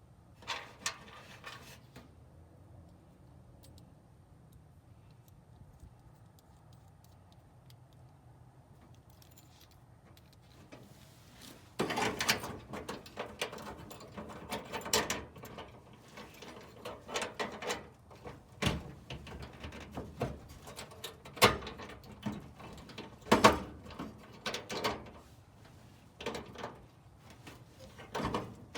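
Irregular clicks, knocks and clatter of tools and small metal parts being handled, starting about halfway in after a quiet stretch.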